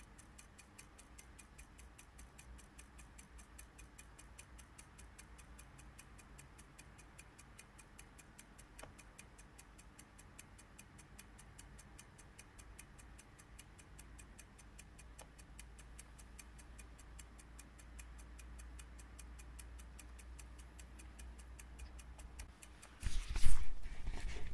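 Mechanical clock ticking steadily and quietly, with a short, much louder sound breaking in near the end.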